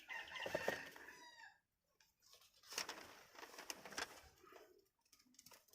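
A rooster crowing once in the background, about a second and a half long, followed by fainter scattered noises.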